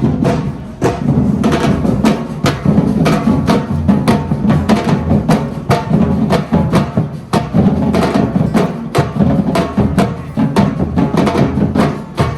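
Live drum performance: several drums struck in a fast, driving rhythm with dense, closely spaced beats and a heavy low boom.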